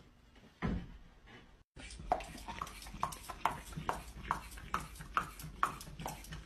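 A soft thump, then a dog chewing pieces of raw carrot, crunching about twice a second.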